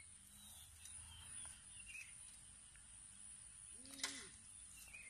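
Near silence outdoors: a faint steady high hum, a few faint bird chirps, and about four seconds in a brief click with a short vocal sound.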